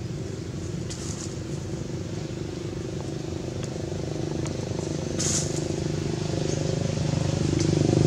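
A motor vehicle's engine running steadily, growing louder near the end. There is a brief dry rustle about five seconds in.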